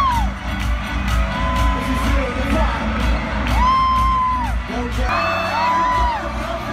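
Live pop concert heard from within a stadium crowd: the song plays loud over the PA with a heavy bass beat and a singer's amplified voice, while fans scream and cheer in long, high-pitched held calls. The bass drops out about five seconds in.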